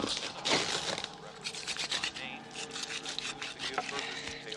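Harsh rasping and scraping sound effects over a steady low drone, part of the film's eerie opening score.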